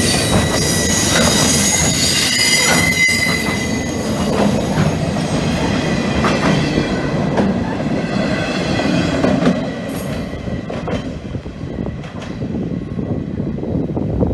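Freight train of the Cincinnati Eastern Railroad rolling past at speed. Its wheels give a high, steady squeal for the first few seconds, which then fades out, over the rumble and clatter of the cars.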